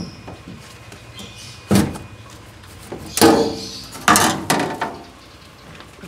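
The top panel of an LG top-loading washing machine being slid off and lifted from the cabinet: several sudden scraping clunks, the loudest about three seconds in, then two more a second later.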